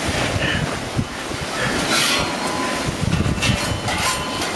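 Rust being scraped off metal fence posts: rough, repeated rasping strokes of a scraper on the metal, with a thin metallic squeal in places.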